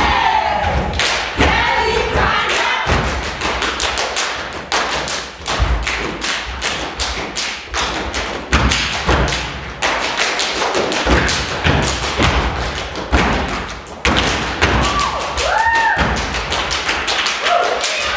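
Step team stomping and clapping in rapid, rhythmic patterns, a percussive step routine of foot stomps and hand claps. Voices call out near the start and again near the end.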